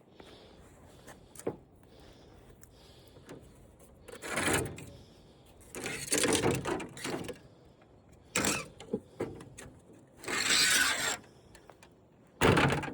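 Scrap parts from a dismantled flat-screen TV being handled and set down: several separate bursts of rustling and scraping, each up to about a second long, with a few light knocks between them.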